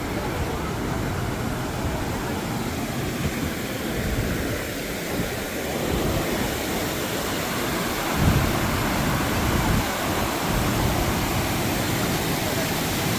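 Steady rushing of a waterfall, with wind buffeting the microphone in low gusts, the strongest about eight seconds in.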